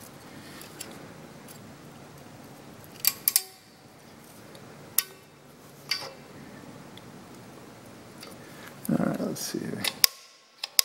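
Small metal clicks and ticks of a steel pick and a small coil tension spring as the spring is hooked back onto its pin inside an optical dividing head's mechanism. There is a pair of sharp clicks about three seconds in, single clicks around five and six seconds, and another near the end.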